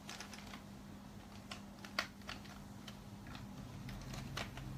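Faint, irregular light clicks and taps, several in a few seconds, over a low steady hum.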